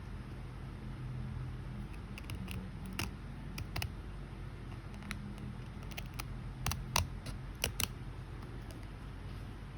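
A scattering of short, sharp clicks and snips from small tools and parts being handled during a camera repair, most of them in the second half, over a steady low hum.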